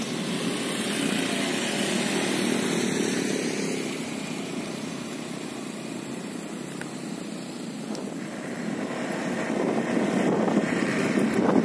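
A small motor scooter engine running as it is ridden across a grass field. It is louder at first and fades as the scooter moves away. A louder rushing noise builds near the end.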